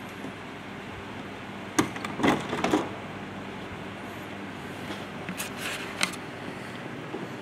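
Metal latches on a BO 105 helicopter's fuselage access panel clicking as they are released and the panel knocking as it is handled: a quick cluster of sharp clicks about two seconds in and a few more near six seconds, over a steady low hum.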